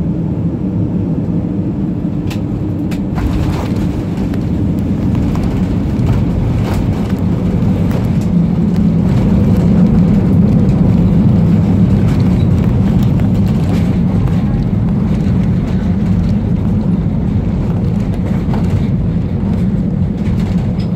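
Loud, steady rumble of an Airbus A320's engines and airflow heard inside the cabin on landing, swelling louder for a few seconds in the middle. A few sharp knocks come in the first seven seconds.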